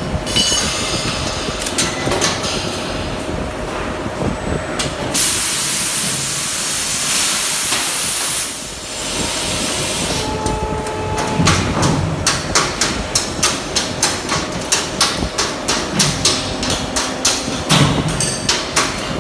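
Aluminium alloy die-casting machine running through its cycle. There is steady machinery noise and a loud hiss about five seconds in that lasts about three seconds. From about halfway on comes a fast, uneven run of sharp clicks and knocks.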